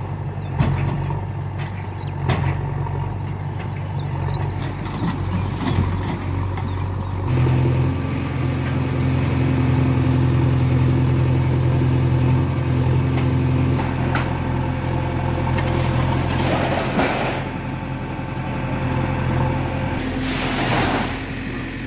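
Diesel engine of a JCB backhoe loader running steadily, then revving up and working harder about seven seconds in as the loader arm pushes into a small building. A few sharp knocks come in the first seconds, and there are two short harsh rushes of noise near the end.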